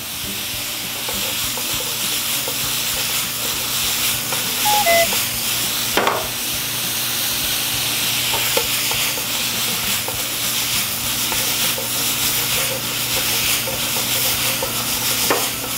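Sliced fish cakes and vegetables stir-frying in a frying pan over a gas flame: steady sizzling, with a wooden spatula scraping and turning the food.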